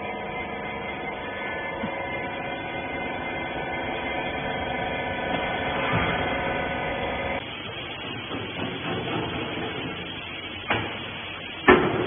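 Hydraulic rag baler's power unit running with a steady multi-tone hum. After a cut there is a rougher machine noise, with two sharp clanks near the end.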